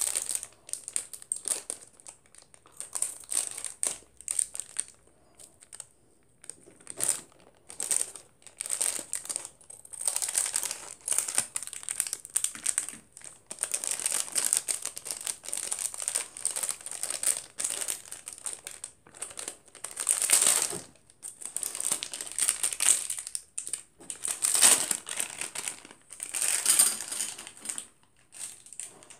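Plastic packaging crinkling and rustling as it is handled, in irregular bursts with brief pauses.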